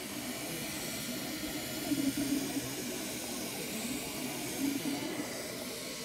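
Ultimaker FDM 3D printer printing: a steady fan whir, with the stepper motors humming in short tones that come and go as the print head moves.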